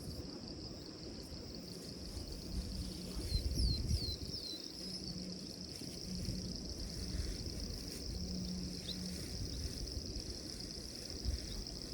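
Steady high-pitched drone of insects, with a bird giving a few short falling whistles about three to four seconds in.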